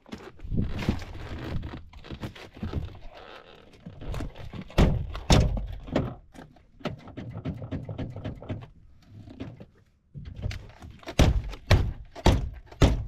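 Irregular heavy thunks and knocks from inside an old car's body as its interior is worked on, with two loud ones about five seconds in and a quick run of them near the end.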